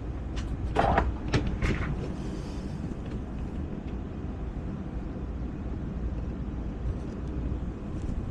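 A few clicks and knocks of a camera tripod being adjusted, then a steady low hum.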